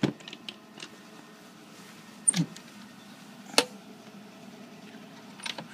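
Clicks and knocks of the antique ice chest's wooden doors and brass latches being handled: several small clicks early, then two sharper knocks about two and a third and three and a half seconds in, and a few faint clicks near the end.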